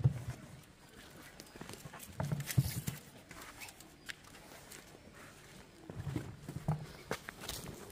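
Oranges being picked by hand out of a wicker basket: irregular soft knocks and rustles of fruit against fruit and wicker, busiest about two seconds in and again near the end.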